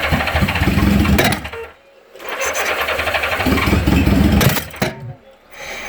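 Honda GL1000 Gold Wing flat-four engine being cranked on its starter motor in two bursts of about two seconds each, without catching: the engine won't start.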